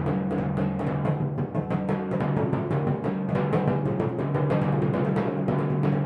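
Four copper-bowled pedal timpani struck with mallets in a fast, even stream of strokes, about eight a second, the drums ringing on under one another at several low pitches.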